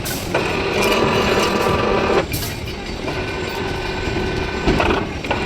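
Electric motor of a rebar ring-bending machine running in spells, a steady hum that starts a moment in, stops about two seconds in, and starts again about three seconds in.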